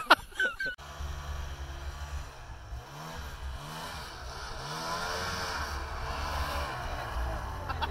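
Snowmobile engine running, its pitch rising and falling as it is revved several times.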